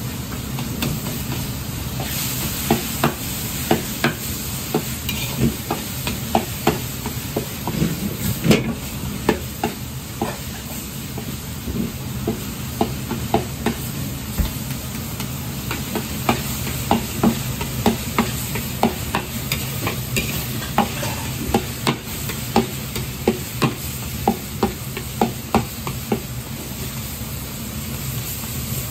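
Metal ladle clinking and scraping against an iron wok as ground pork is stir-fried, with repeated sharp clinks about one or two a second over a steady sizzle and low hum.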